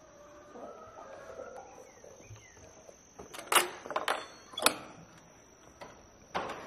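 Camera handling noise: a handful of sharp knocks and rubs about halfway through and again near the end, over a faint steady high tone.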